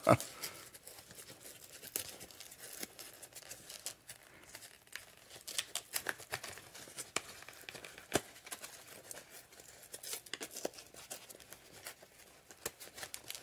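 Cardboard phone-box packaging being handled and pulled apart: scattered faint crinkling, tearing and small clicks and taps.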